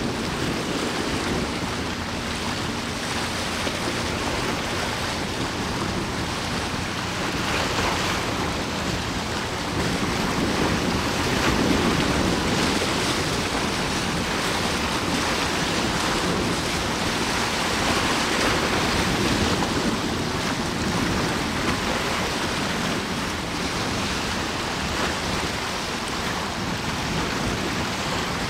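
Steady wind on the microphone over the wash of waves, with a faint low hum that fades out after about five seconds.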